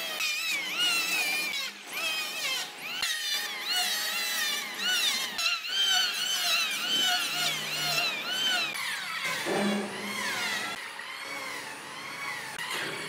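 Electric hand planer running on a jackfruit log, its motor whine dipping and rising in pitch over and over as the blades bite into the wood and ease off. The sound eases somewhat in the last few seconds.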